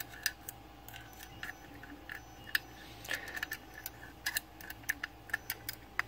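Light, irregular metallic clicks and small scrapes of a hooked pick wire working the levers inside a brass mortise lever lock, several ticks a second, unevenly spaced.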